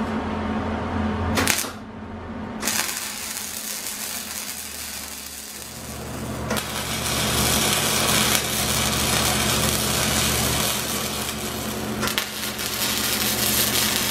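Electric arc welding crackling and sputtering as bearing mounting plates are welded onto a steel go-kart frame. It starts about three seconds in, gets louder partway through, and stops briefly near the end before a second run.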